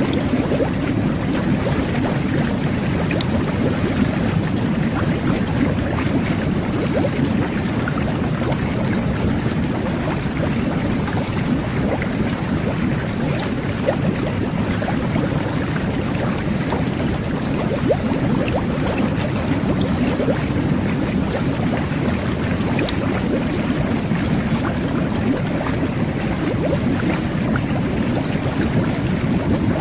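Jet bath running: a steady churning rush of water and air bubbles, with many small pops and crackles scattered through it.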